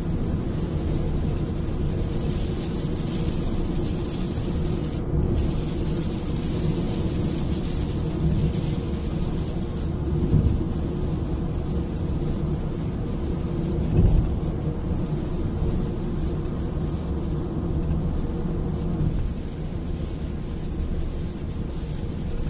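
Car cabin noise while driving at motorway speed: a steady low rumble of tyres and engine, with two brief louder bumps about ten and fourteen seconds in.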